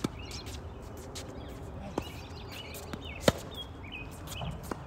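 Tennis rally on a hard court: four sharp pops of the ball being struck by rackets and bouncing, the loudest about three seconds in. Birds chirp in the background.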